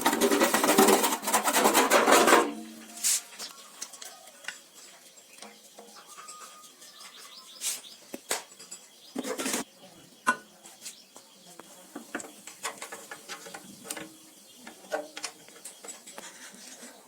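Metal tools and parts clinking and knocking at irregular intervals, with a loud rushing burst of noise during the first two seconds or so.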